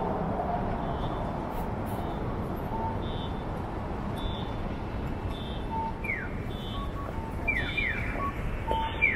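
Steady street-traffic noise at a Japanese signalised pedestrian crossing, with a faint short electronic beep repeating about once a second. From about six seconds in, the crossing's audible signal starts: short, descending, bird-like electronic chirps that mark the walk phase.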